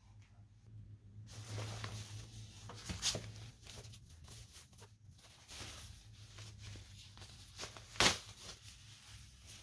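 Packaging being handled and rustled, with scattered small clicks and one sharp knock about eight seconds in.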